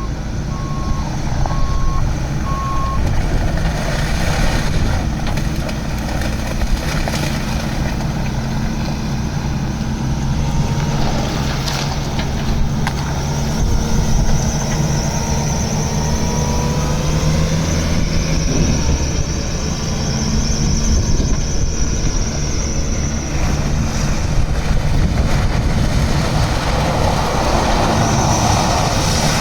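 Bobcat S770 skid steer loader's diesel engine running steadily, with its back-up alarm beeping about three times in the first few seconds.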